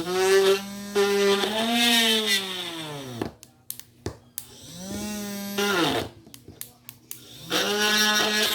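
Homemade hand drill's RS755 DC motor triggered three times: each time it spins up to a steady whine, then winds down with a falling pitch when the switch is released. A few short clicks fall in the gaps between runs.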